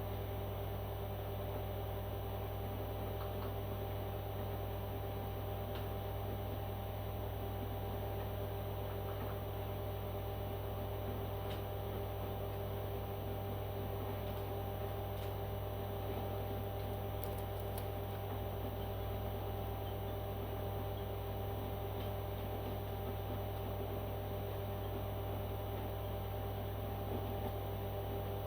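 Steady low electrical hum with several fixed tones, and a few faint clicks partway through.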